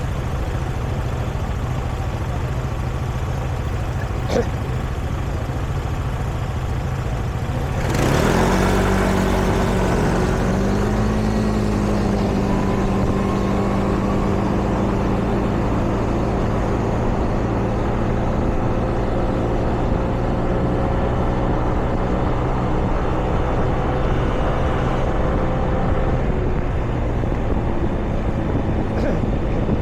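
City street traffic: a steady low rumble of vehicles, then about eight seconds in a nearby engine gets louder, rising briefly in pitch before holding a steady hum.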